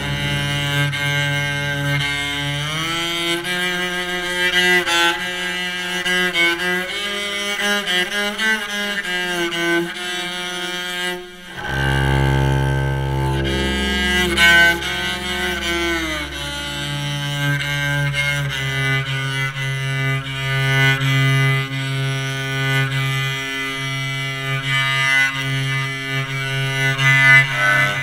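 Homemade electric cello bowed through its pickups: a slow melody with sliding notes over held low notes, with a brief break about halfway through.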